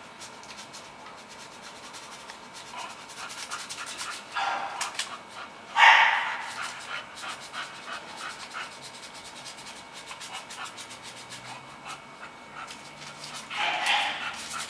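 A bully-type dog panting, with short barks about four and a half and six seconds in and again near the end; the one at six seconds is the loudest.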